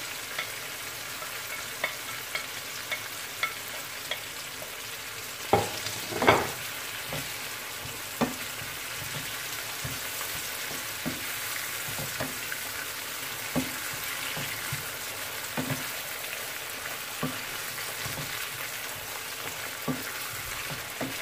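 Peppers, onions, tomatoes and flaked red herring sizzling in oil in a frying pan, stirred with a wooden spatula that knocks and scrapes against the pan every second or two; the loudest knocks come about six seconds in.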